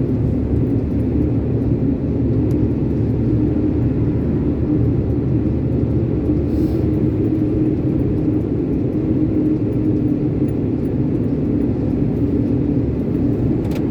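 Iveco concrete mixer lorry's diesel engine running steadily under way, a constant low rumble and hum with road noise, heard from inside the cab.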